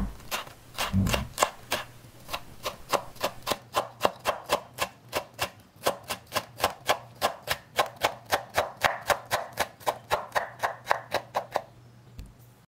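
Chef's knife mincing red pepper on a wooden cutting board: quick, even chops about five a second, stopping shortly before the end.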